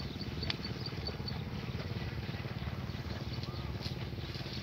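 A small engine running steadily, with a fast, even low pulse. A high chirp repeats about four times a second during the first second.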